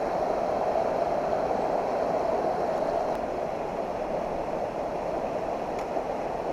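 Steady rush of flowing water in a mountain stream.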